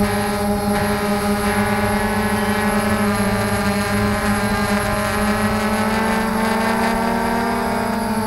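Steady whine of a small remote-controlled aircraft's motor and propeller, heard from the camera on board, over a low rush of air. The pitch shifts slightly near the end.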